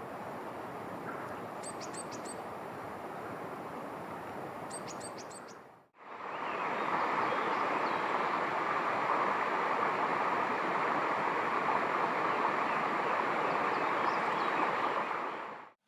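Small songbird giving two quick series of three or four short, high calls over a steady outdoor background; about six seconds in the sound cuts to a louder, even rushing noise.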